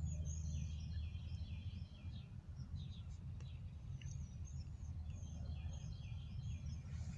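A small bird singing in quick twittering phrases, one run at the start and another from about four seconds in, over a steady low outdoor rumble.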